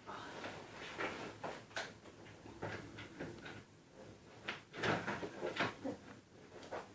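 Scattered clunks and rattles from handling a dirt bike, with no engine running; the loudest knocks come in a cluster a little past the middle.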